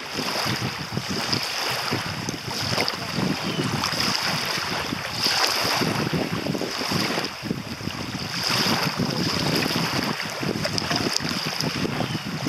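Small waves lapping and washing up on a sandy lakeshore, swelling and easing every second or two, with wind buffeting the microphone.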